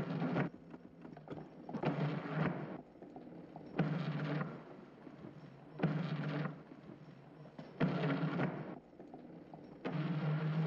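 Trailer soundtrack of heavy hits that start suddenly and repeat about every two seconds, each ringing for under a second with a low hum.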